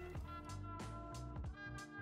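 Background music with a steady beat of about three strikes a second under held instrumental notes and a bass line.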